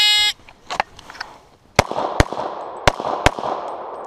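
Electronic shot timer beeps once as the start signal, then about a second and a half later a semi-automatic pistol fires four shots in two quick pairs, the shots of each pair about half a second apart, each shot ringing out across the range.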